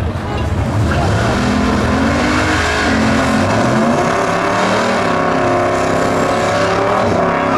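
Chevrolet Camaro drag car doing a burnout: the engine revs up about a second or two in and is held at high revs, with the rear tyres spinning on the wet track under a steady hiss.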